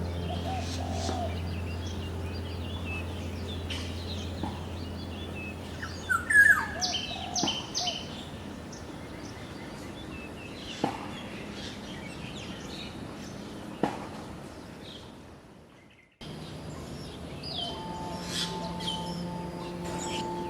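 Wild birds chirping and calling, with one louder call of quick falling notes about six seconds in. The sound fades out near the end and cuts to more chirping.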